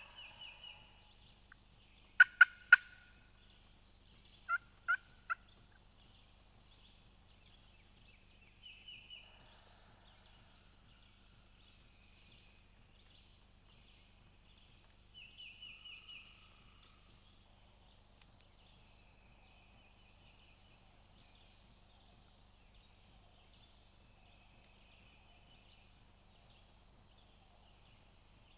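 Turkey calling: two sets of three sharp, loud notes, about two seconds in and again about four and a half seconds in, with short runs of rapid, fainter notes near the start, around nine seconds in and around fifteen seconds in. Songbirds sing faintly throughout.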